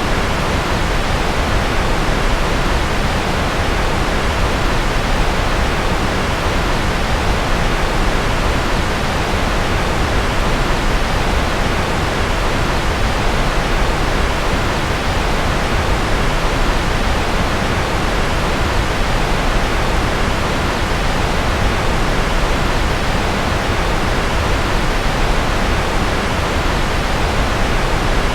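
Steady, unchanging rushing noise from a white-noise sleep track billed as rocket noise, heaviest in the low end and fading toward the highs.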